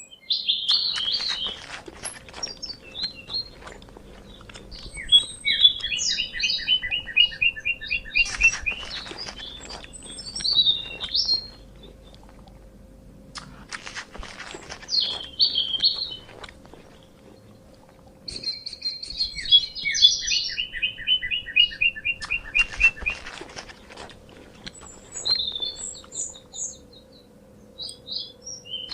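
Birds chirping and calling, with sharp high chirps and a fast trill of short repeated notes. The same sequence comes round again about halfway through.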